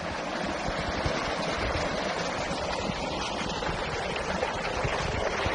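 Water rushing steadily through a narrow stone channel, with uneven low buffeting from wind on the microphone.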